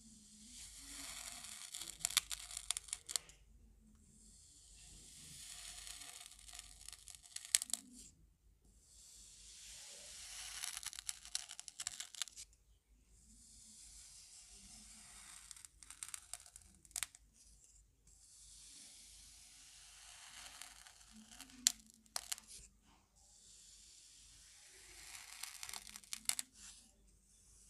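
Flat wooden spoon slicing down through packed kinetic sand, about six slow cuts. Each cut is a gritty crunching hiss that swells and ends with sharp crackles as the sand breaks away.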